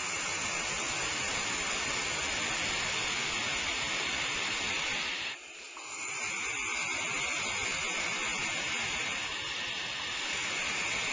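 Barn owls giving their raspy, hissing snore calls, a near-continuous hiss that breaks off briefly about five seconds in.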